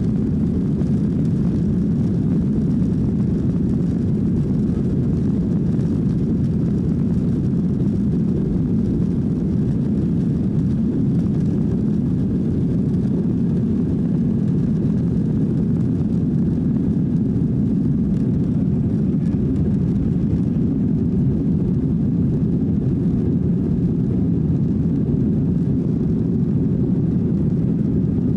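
Boeing 737-800's CFM56-7B turbofan engines at takeoff thrust, heard inside the cabin as a steady low rumble through the takeoff roll and liftoff.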